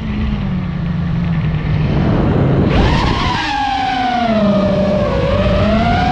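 FPV quadcopter's motors and propellers, heard from the drone itself. A low hum at chopped throttle comes first; about three seconds in it punches up sharply to a high whine, which sags and climbs again as the throttle changes, over a constant rush of prop wash.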